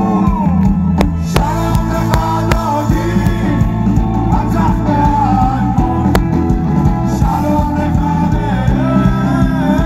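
Live rock band with electric guitar, bass and drums, and a singing voice carrying a gliding melody. A few sharp hits stand out over the band.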